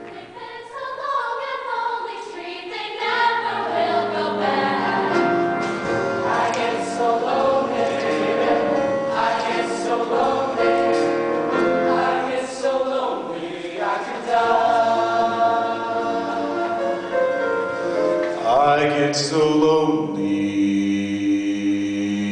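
A show choir singing together in harmony with musical accompaniment; about twenty seconds in the sound settles into a held chord.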